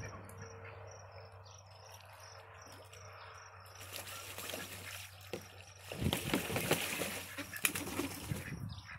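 Ducks splashing in a shallow plastic kiddie pool, quiet at first and then growing louder from about halfway, with the heaviest splashing in the last few seconds. Crickets chirp faintly underneath through the quieter first half.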